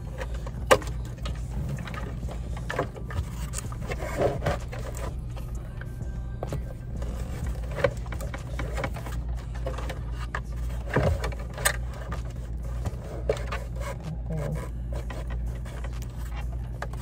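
Plastic centre-console trim of a BMW being handled and worked loose: scattered clicks, knocks and scrapes, the sharpest about a second in. A steady low hum runs underneath.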